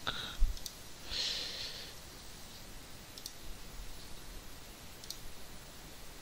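A few single computer mouse clicks, spaced out, over faint steady background hiss, with a soft breathy noise about a second in.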